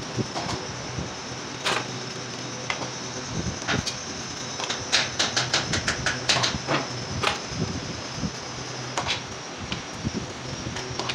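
Copper winding wire and coils being handled, giving light scattered clicks and a quick run of sharp clicks about halfway through, over a steady machine hum with a thin high whine.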